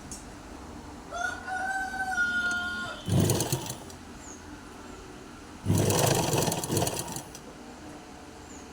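A rooster crows once, a long held call, followed by two short runs of a sewing machine stitching with a rapid, even rattle, about three and six seconds in.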